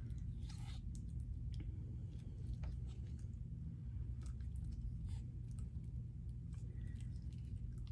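Wooden popsicle stick stirring and pulling thickening, sticky glue slime in a small plastic cup: faint, irregular wet clicks and squishes over a steady low hum.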